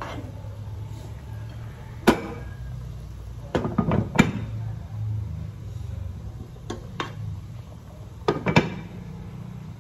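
A spoon and a glass pot lid clinking against a cooking pot of simmering water. The sharp knocks come one at a time, with a burst of clinks about four seconds in as the lid goes on and another pair near the end as it is set straight. A steady low rumble runs underneath.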